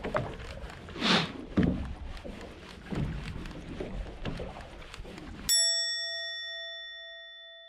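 Rumbling wind and water noise with a few knocks, cut off abruptly about five and a half seconds in by a single struck bell ding that rings out over dead silence and fades slowly, in the manner of an edited-in chime.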